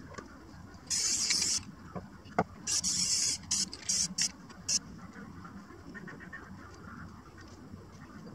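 Aerosol spray-paint can hissing in short blasts: two half-second sprays about a second and three seconds in, then a run of four or five quick puffs, with a single light knock between them.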